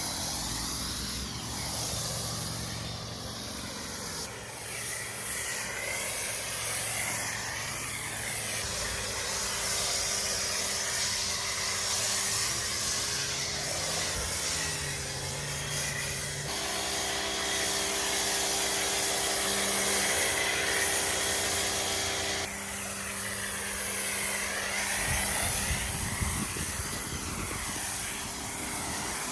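Pressure washer spraying water onto a car's paint: a steady hiss of spray over the machine's running hum, changing abruptly a few times as separate stretches are cut together.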